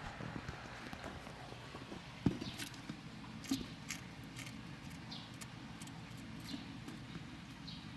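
Small scrabbling clicks and taps of a leopard gecko and its live feeder crickets moving about the enclosure, several light ticks a second, with one louder knock about two seconds in, over a steady low hum.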